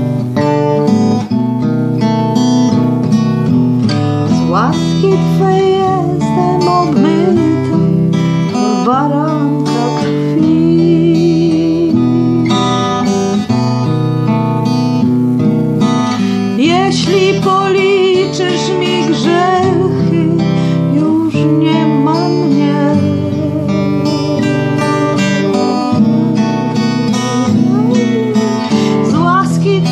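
Acoustic guitar strummed in slow chords that change every couple of seconds, with a wordless voice gliding over them and carrying the melody, in an instrumental stretch of a worship song.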